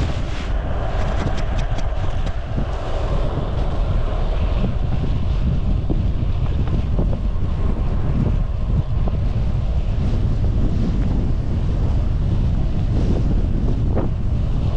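Wind buffeting the microphone of a camera carried on a moving bicycle: a steady low rumble with a hiss above it.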